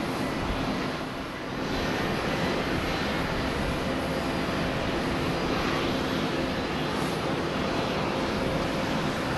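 Boeing 787-9 jet engines running at taxi idle as the airliner taxis: a steady rush of noise with a low hum underneath.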